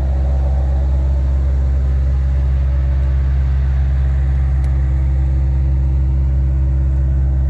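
A vehicle engine idling steadily, an even low drone that does not change.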